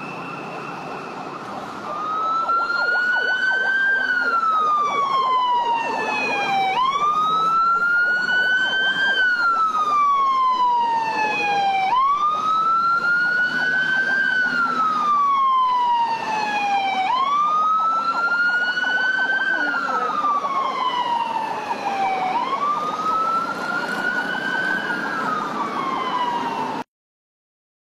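Police siren wailing in a slow cycle: each sweep rises quickly, then falls slowly, about every five seconds, over traffic noise. It starts about two seconds in and cuts off suddenly near the end.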